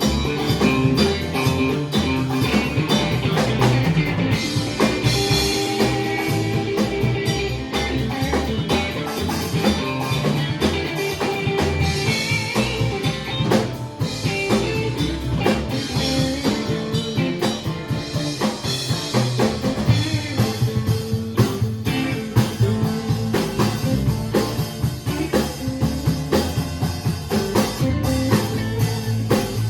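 Live band playing an instrumental passage: guitar over bass and a drum kit keeping a steady beat.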